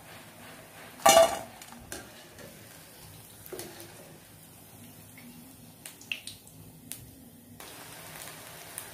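Gobi 65 deep-frying in hot oil in a kadai: a low sizzle throughout, with one loud ringing metallic clink of the wire spider strainer about a second in and a few lighter clinks and taps after it. Near the end the sizzle grows louder as the remaining cauliflower pieces go into the oil.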